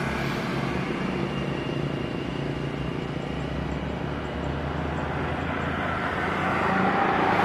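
Steady outdoor engine noise from traffic or aircraft, with a continuous low hum that swells near the end.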